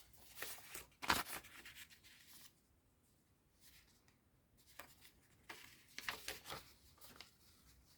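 Paper being handled on a work surface: faint short rustles and light scrapes in the first second or so and again in the second half, with a near-quiet spell between.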